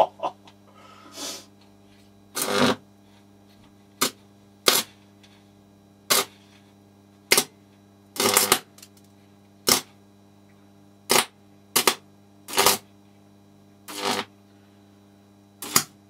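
High-voltage arcing from two microwave oven transformers wired in parallel, at about 4,200 volts, as the probe is touched to the components of a sound card: about a dozen separate sharp bursts, some brief snaps and some up to half a second long. A steady mains-frequency hum from the transformers sounds beneath the bursts.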